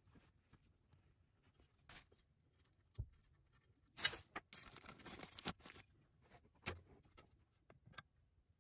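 Quiet handling noise of hands working cables and tools: scattered light clicks and short rustles, the loudest a brief scrape about four seconds in.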